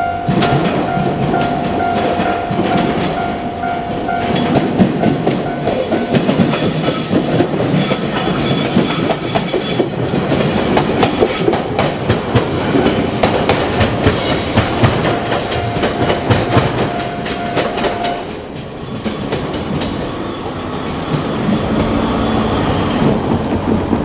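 A JR Kyushu 817 series electric train passing close, its wheels clattering rhythmically over rail joints and points, with a high whine and squeal as it goes by. A level-crossing warning bell rings steadily at the start, stops about four seconds in, and sounds again for a few seconds shortly before the train has passed.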